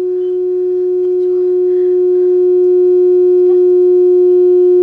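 A steady single-pitched electronic tone with a few overtones, growing steadily louder, with faint whimpers underneath.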